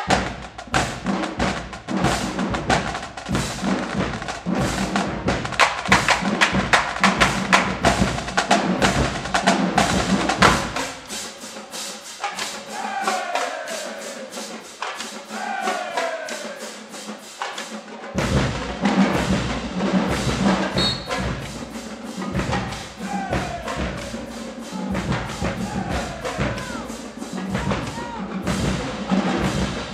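Marching band drumline playing a cadence on snare, tenor and bass drums. The bass drums drop out for several seconds near the middle while the snares keep going, then the full cadence comes back in.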